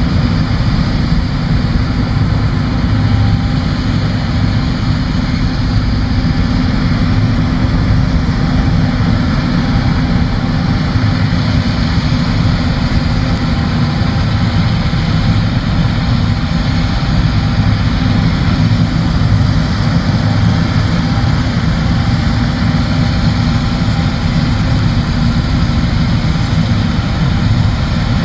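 John Deere combine harvester running steadily in a soybean field: a constant, heavy engine and machinery drone with a steady hiss above it.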